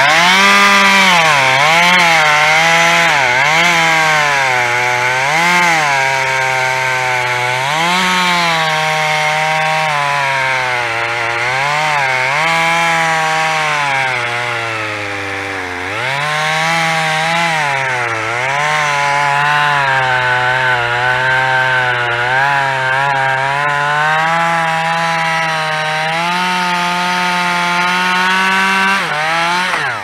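Two-stroke chainsaw cutting through a tree trunk, the engine pitch dipping again and again as the chain bogs down in the wood and climbing back between, dropping lowest about halfway through. It falls away right at the end.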